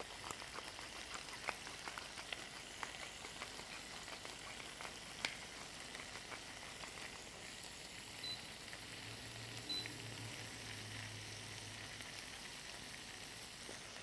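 Calamari rings and shrimp sizzling in lemon juice in a frying pan, a steady hiss dotted with scattered pops and crackles, with a silicone spatula stirring them. A low hum comes in for a few seconds past the middle.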